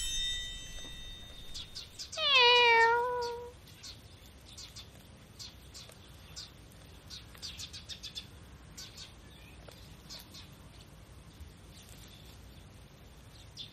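A goat bleats once, a single call about a second and a half long that dips slightly in pitch and then holds, followed by faint scattered ticks.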